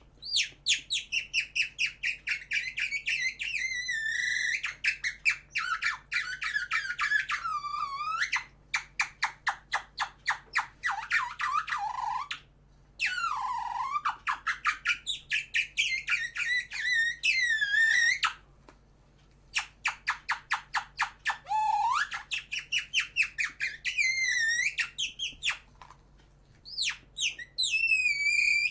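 Artistic human whistling: fast warbling trills and sliding high notes, in phrases separated by short pauses.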